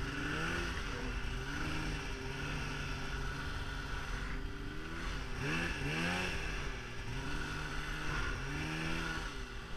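Polaris snowmobile engine revving up and down as the sled rides through deep powder, its pitch rising and falling several times, with a sharp climb about five and a half seconds in.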